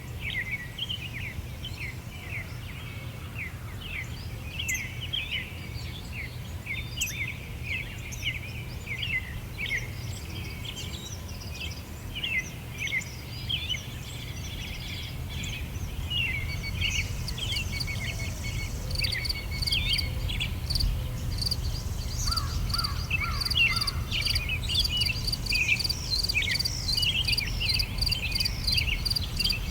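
Many small birds chirping and singing over a low, steady background rumble. About two-thirds of the way in, an insect such as a cricket joins with a fast, evenly pulsing high chirp.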